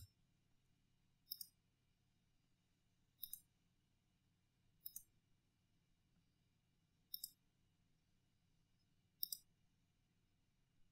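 Five sharp clicks of a computer mouse button, spaced one and a half to two and a half seconds apart, each a quick double tick of press and release, over near silence.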